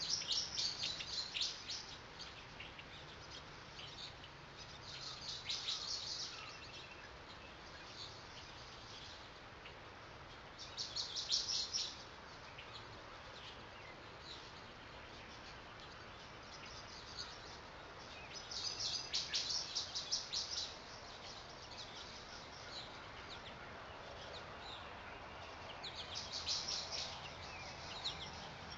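Small birds chirping in bursts of rapid, high-pitched notes every several seconds, over a faint steady outdoor hiss: a morning birdsong ambience.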